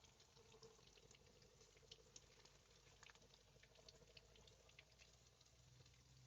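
Faint bubbling of water heating in a pot, with scattered small ticks and pops.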